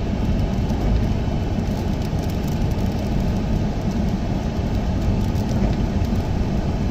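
Steady low roar of storm wind and surf, with wind rumbling on the microphone.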